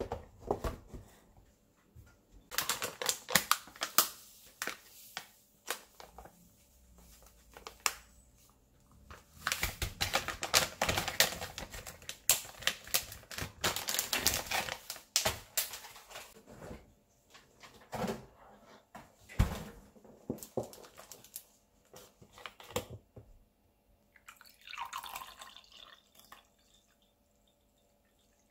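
Crinkling and rustling of snack boxes and a drink-powder packet being handled and emptied, with a few sharp knocks of things set down on a stainless steel counter. Near the end, water poured from a plastic bottle into a glass.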